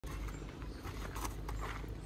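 Footsteps on rough ground: several soft, irregular steps over a low, steady rumble.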